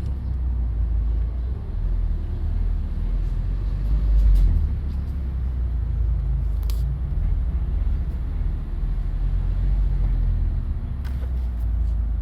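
Low, steady rumble of a manual 2020 Mazda MX-5 Miata RF's four-cylinder engine and drivetrain running at low revs, with a few faint clicks; this is the low-rpm first-gear running in which the owner reports a noise when the clutch is pressed.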